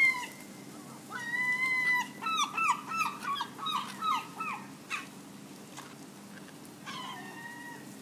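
Gulls calling: a drawn-out mewing call about a second in, then a run of short, falling yelping notes, about three a second, and another mewing call near the end.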